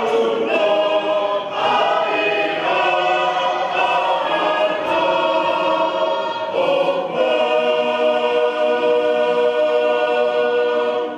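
Tongan church choir singing a hymn unaccompanied in several parts, in held chords with short breaks between phrases. It ends on one long sustained final chord.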